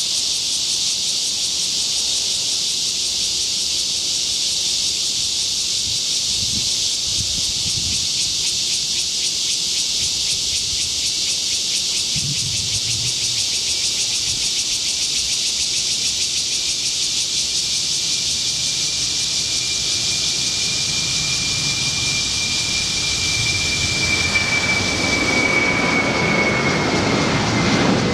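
A steady high-pitched hiss, joined about two-thirds of the way in by a jet airliner's whine that falls slowly in pitch near the end, as a low engine rumble builds over the last few seconds.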